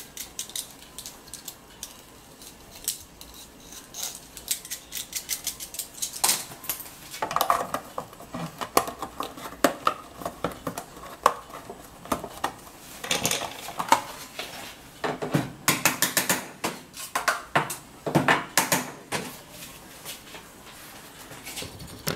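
Irregular clicks, knocks and scraping as PVC pipe fittings with metal hose clamps are handled against a thin stainless steel sheet, some knocks ringing briefly; busiest in the middle stretch.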